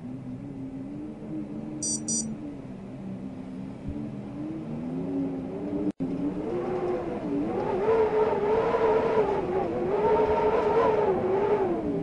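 Wind blowing with a whistling tone that wavers up and down in pitch. About halfway through there is a momentary dropout, after which the tone is louder and higher.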